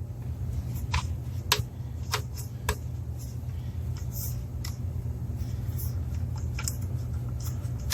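Several sharp clicks and knocks from handling a gun with a flashlight on a Picatinny rail mount, over a steady low hum.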